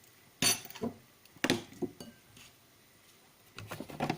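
A spoon clinking and knocking against a bowl while a spoonful of butter is added to the bread mix: a few sharp separate clinks, then a quicker cluster near the end.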